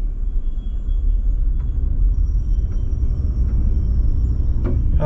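2023 Toyota Highlander's 2.4-litre turbocharged four-cylinder running under throttle with its wheels spinning on the slip-test rollers, a steady low rumble. The all-wheel-drive system is not getting the SUV off the rollers, so it stays stuck.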